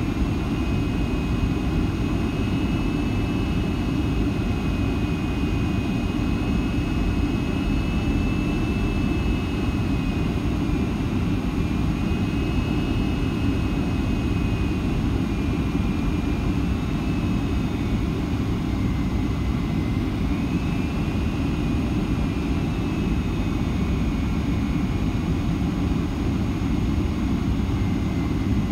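Cabin noise of a Boeing 757-200 on final approach, heard from a seat beside the wing: a steady low rush of air and engine noise. Over it runs a thin high whine from the Pratt & Whitney PW2000 engines that drifts up and down in pitch several times.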